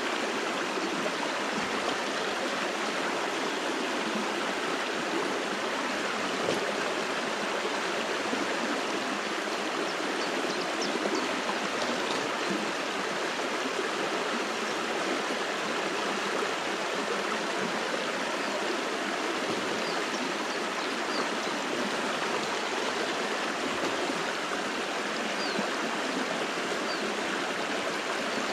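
A stream flowing, a steady, even rushing of water with no change in level.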